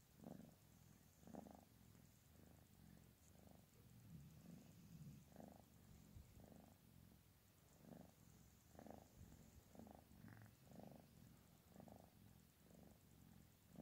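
Tabby cat purring, faint and steady, a low rumble that swells about once a second with its breathing: a contented purr while being stroked.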